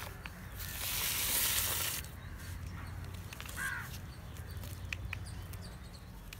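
Rustling as a potted rose in a plastic grow bag is handled and set down, then a short bird call about three and a half seconds in, with a few light taps.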